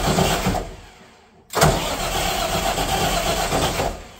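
Engine of a 110 kVA Katolight generator set cranking on its starter in two bursts without catching: the first dies away within the first second and a half, and the second starts about a second and a half in and runs for over two seconds.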